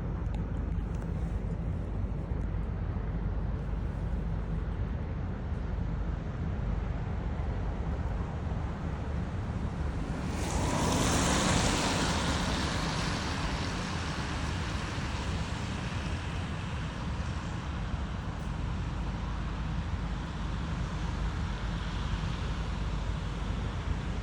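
Steady low rumble of street ambience with wind buffeting the microphone. About ten seconds in, a vehicle passes on the wet street: its tyre hiss swells, peaks and fades away over several seconds.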